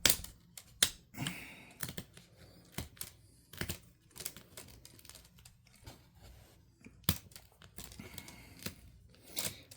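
Irregular sharp clicks and small snaps of plastic pry tools working at a laptop's plastic screen bezel.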